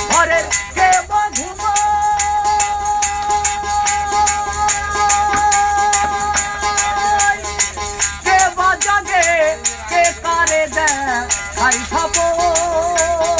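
A male folk singer holds one long note, then sings wavering, ornamented phrases near the end. He accompanies himself on a gourd-bodied one-string ektara over a steady bright rattling pulse of about four to five beats a second.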